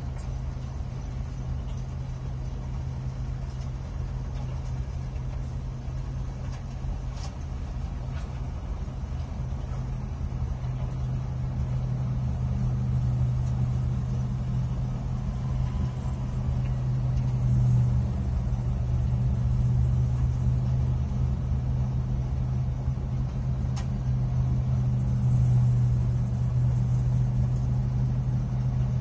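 Horizontal grinder running as it shreds plastic waste: a steady low drone that grows louder about twelve seconds in, with a couple of faint clicks.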